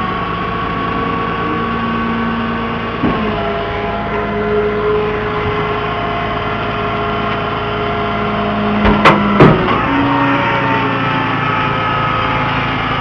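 Tow truck's engine running steadily, its pitch shifting a few times. A couple of sharp knocks about nine seconds in are the loudest sounds.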